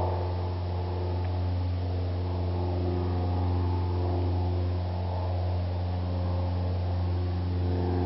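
A steady low hum with a row of even overtones above it, holding one pitch without change.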